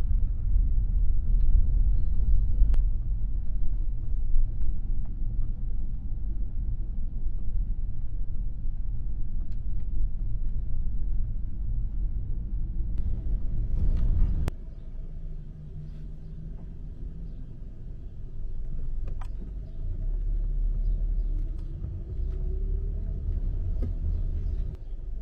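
Low road and wind rumble of a moving car, heard from inside the car. It drops suddenly to a quieter rumble about halfway through, and a faint engine tone rises and falls near the end.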